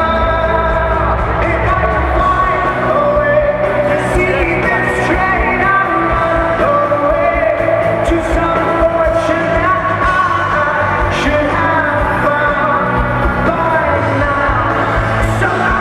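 Live indie rock band playing a song with a lead singer, a loud, dense concert mix of voice, instruments and drums.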